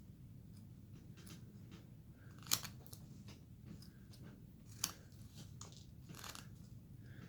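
Carving blade cutting into basswood by hand: quiet scraping cuts with two sharp snaps about two and a half and five seconds in, over a low steady hum.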